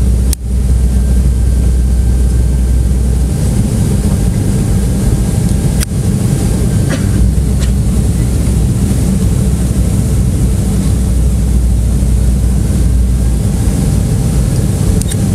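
Airliner cabin noise in flight: a steady, loud low rumble of engines and airflow heard from a window seat, with a few brief clicks.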